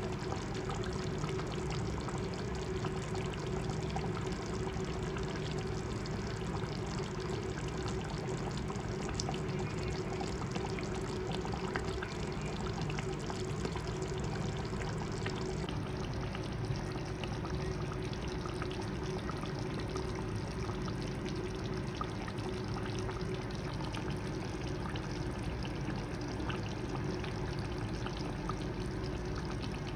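A pot of chicken curry cooking on the stove, giving a steady noise of bubbling liquid with small scattered pops.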